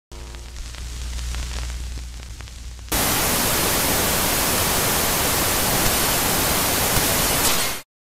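TV static sound effect: a low hum with faint crackle for about three seconds, then a sudden burst of loud, even white-noise static that holds steady for about five seconds and cuts off abruptly.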